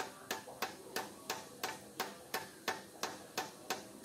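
Light, even metal-on-metal taps, about three a second, driving a new steering-head cone race into a motorcycle frame's head tube with the old race used as a driver. The note of the taps shows whether the race is fully seated.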